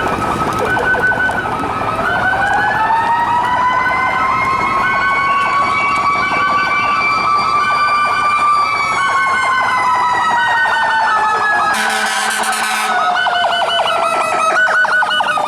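Fire engine sirens: one wail winds up slowly over several seconds and falls back, while another siren yelps rapidly and steadily. About twelve seconds in comes a brief blast of loud hissing noise.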